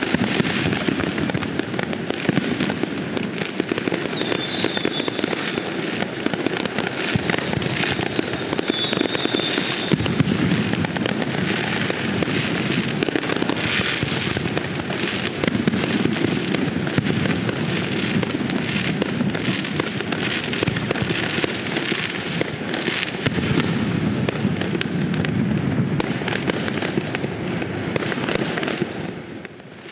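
Fireworks going off in a dense, continuous barrage of bangs and crackling, easing off briefly near the end.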